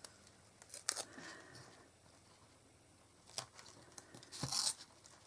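Faint handling of paper and card: a few light taps and a short papery rustle about four and a half seconds in, as the backing paper is peeled off an adhesive piece.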